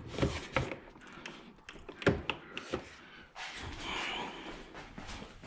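Several sharp knocks and clicks of intake parts being handled and worked loose in the engine bay, then a rubbing, rustling noise from about three and a half seconds in as a piece is pulled free.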